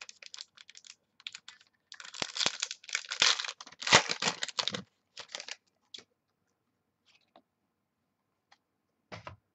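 Foil wrapper of a trading-card pack being torn open and crinkled by hand. The crackling is densest and loudest from about two to five seconds in, followed by a few scattered light clicks and one short crinkle near the end.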